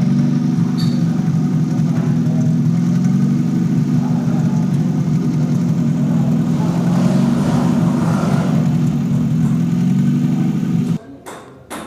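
Toyota Corolla XLi petrol engine idling with the silencer removed, so the exhaust is heard open. The idle is steady and even with no misfire, the sign that the cam/crank sensor signal fault has been cured. It cuts off suddenly near the end.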